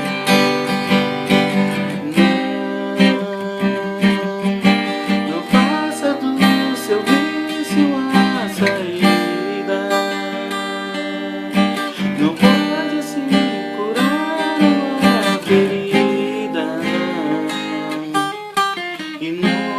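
Music: a strummed acoustic guitar, with a melody line over it that glides and wavers in pitch from about a third of the way in.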